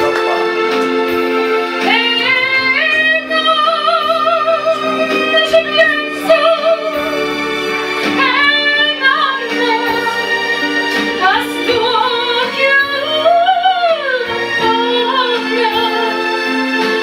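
A woman singing into a handheld microphone, holding long notes with vibrato, over steady instrumental accompaniment.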